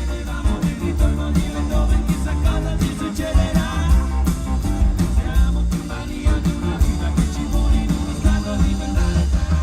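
Rock music with a singer, guitar and a heavy, pulsing bass beat.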